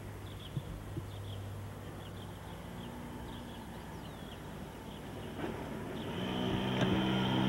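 Faint low hum with a few faint high chirps, then about six seconds in an engine sound comes in and grows steadily louder.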